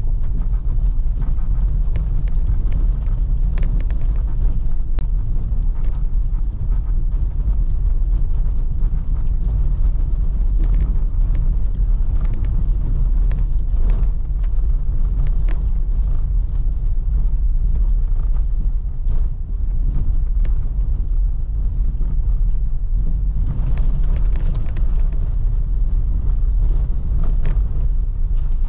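Car driving, with a steady low rumble of engine and tyres and scattered sharp ticks throughout.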